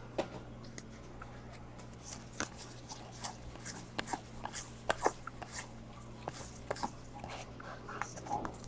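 Baseball trading cards being flipped one at a time from one stack to another: faint, irregular clicks and slides of card stock, over a steady low electrical hum.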